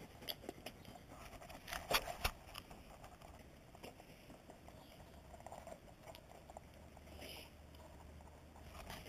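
Faint clicks and rustling from a Groenendael (Belgian Shepherd) dog's mouth and fur right at the microphone, with a few sharper clicks about two seconds in.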